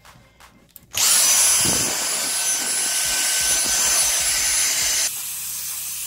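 Cordless stick vacuum switched on about a second in, running with a steady high whine over rushing air as it sucks dust out of a desktop PC case. Near the end the whine cuts out and the sound drops to a quieter hiss.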